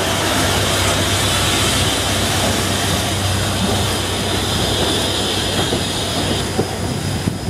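British Railways Standard 4 2-6-4 tank steam locomotive passing close by, steam hissing loudly from low around its wheels over a steady low hum; the hiss fades about six and a half seconds in.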